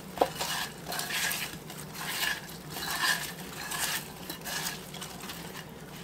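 Seasoned raw potato wedges being tossed by hand in a glazed baking dish: irregular bursts of wedges clacking against each other and the dish, with soft rustling, dying away near the end.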